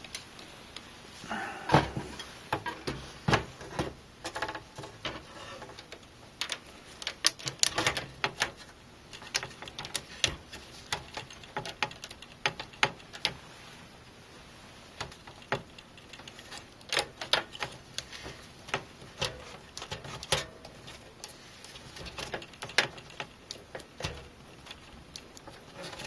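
Irregular light clicks and taps, some sharper than others, as a motherboard is lowered into a computer case and pressed and nudged into place on its standoffs.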